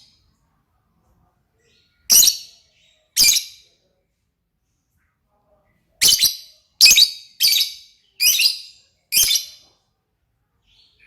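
Lovebird giving short, high-pitched calls: two about a second apart near the start, then after a pause a run of five more, each under half a second.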